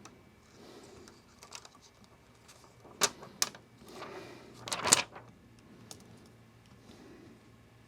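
Small tools and phone parts being handled at a repair bench: several sharp clicks and taps, the loudest a few seconds in and a tight cluster near five seconds, with faint rustling between them.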